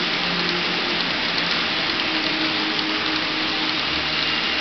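N-scale model coal hopper cars rolling along the track: a steady rushing rattle of small metal wheels on rail, with a faint hum underneath.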